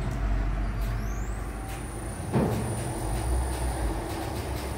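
Gas burner of a taftoon bread-baking machine starting up over a steady low hum. A high whine rises and then holds steady as the blower spins up. About halfway through comes a sudden whump as the burner lights, followed by a steady rushing of the flame.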